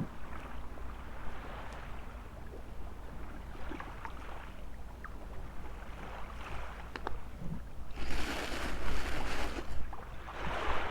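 Sea waves washing onto a beach, with two louder surges of surf about eight and ten seconds in, over a steady low rumble of wind on the microphone.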